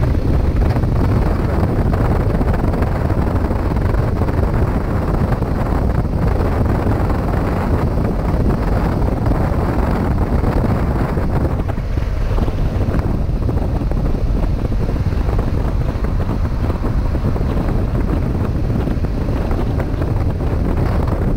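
Steady wind rushing over the microphone of a moving motorcycle, with the BMW F800's parallel-twin engine running under it at cruising speed.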